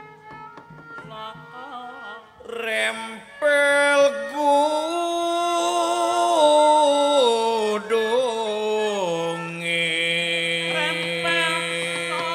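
Sundanese wayang golek gamelan music. It is soft and sparse at first; about three and a half seconds in, a loud, slow melody of long held, gliding notes takes over.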